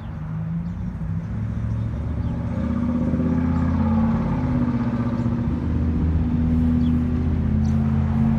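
Pressure washer engine running steadily, fading up over the first few seconds and then holding an even pitch.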